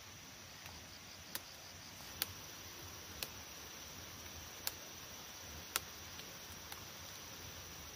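Papaya flower stalks snapping as they are broken off the tree by hand: about five sharp, crisp snaps at irregular intervals of roughly a second, with a few fainter ones, over a faint steady hiss.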